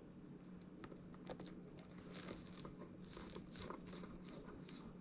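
Faint rustling and small plastic clicks from twisting wire nuts onto the electrical wires of a garbage disposal, busiest from about two seconds in, over a faint steady low hum.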